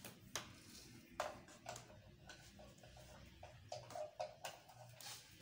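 Faint, irregular clicks and light taps from a power cord and plug being handled behind a television as it is plugged in.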